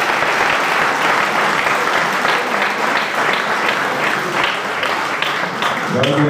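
Crowd applauding: dense, steady clapping from a large audience.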